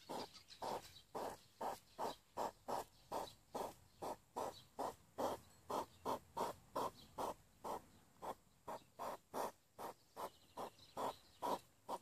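European hedgehog eating from a bowl: steady, rhythmic chewing, about three bites a second, that stops suddenly near the end.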